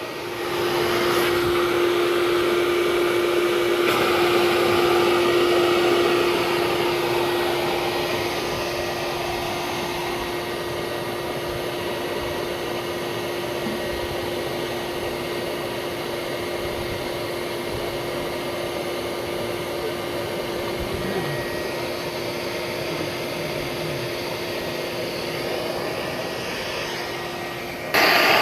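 Steady motor drone with a constant hum running throughout, a little louder in the first few seconds, then a sudden change in the sound near the end.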